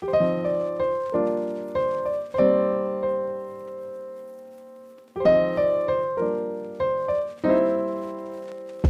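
Solo piano music: a sequence of struck chords that ring and fade, with one chord held and dying away before the playing resumes about five seconds in.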